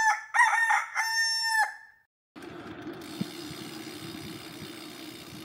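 A rooster crowing one cock-a-doodle-doo: two short notes, then a long held note that fades out about two seconds in. After a short pause, a steady low background noise takes over.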